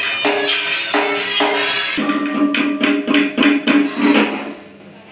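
Vietnamese ceremonial ritual music: held melodic notes over repeated percussion strikes, stopping about four and a half seconds in.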